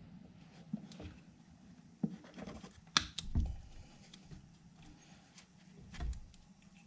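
Faint hand-working noises: scattered small clicks, knocks and scraping, with a sharp click about three seconds in, as a spark plug boot is worked loose in the cramped engine bay of a Can-Am Outlander 1000R.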